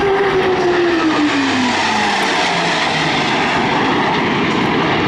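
Blue Angels F/A-18 Hornet jet flying past with a loud, steady roar, its tone falling in pitch over the first couple of seconds as it goes by.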